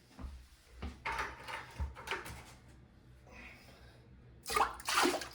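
A few knocks and clunks of a plastic bucket and toilet being handled, then, about four and a half seconds in, a loud rush of water into a toilet bowl begins as dirty water is dumped and sent down.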